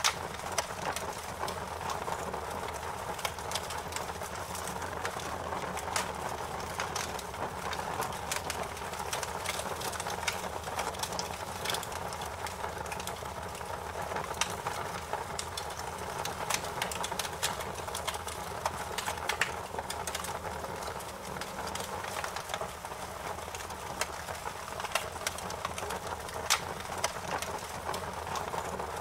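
Wood fire in a fireplace crackling, with frequent irregular sharp pops over a steady hiss.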